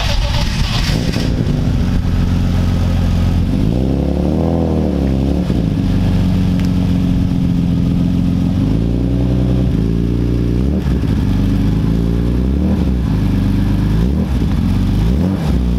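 BMW S50 straight-six engine in an E36 M3 idling steadily and blipped up and down in several short revs. It runs smoothly with no rod knock, its rod bearings freshly replaced.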